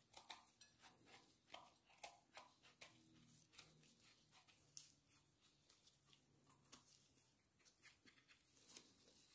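Faint, irregular clicks and scrapes of a small knife trimming and scraping the stem of an orange-capped wild mushroom.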